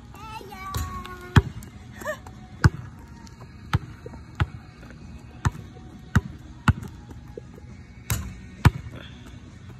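Basketball bouncing on asphalt: about nine sharp, separate bounces at uneven intervals.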